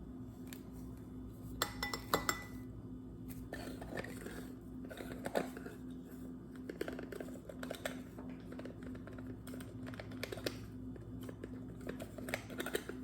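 Measuring spoon clinking and scraping against a spice container and bowl as ground cinnamon is scooped and levelled, in scattered light taps, one ringing briefly about two seconds in. A steady low hum runs underneath.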